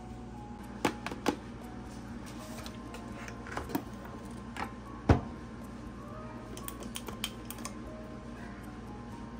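Cosmetic packaging being unboxed and handled: scattered sharp clicks and taps of a paperboard box and a plastic bottle. The loudest knock comes about five seconds in, with a quick run of small clicks a couple of seconds later.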